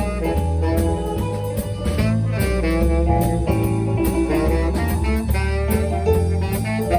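Live band playing jazz: a melody line over a bass line that steps from note to note and steady drum strokes.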